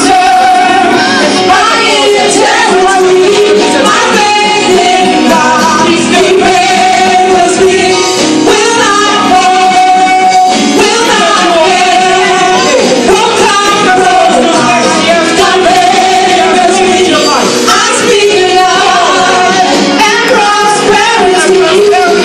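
A small mixed group of men and women singing a gospel song together into microphones, loud and continuous.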